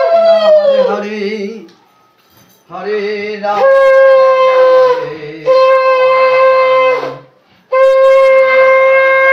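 Conch shell (shankha) blown in long, steady, loud blasts with short breaks between them, the pitch sagging as each blast dies away: one blast ends about a second in and three more follow. It is blown as part of the Hindu puja ritual.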